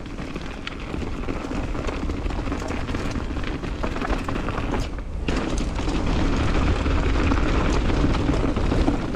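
Mountain bike riding down a dirt trail: wind buffeting the onboard camera's microphone over tyre noise, with sharp clicks and rattles from the bike. It dips briefly about halfway through, then grows louder as the ride goes on.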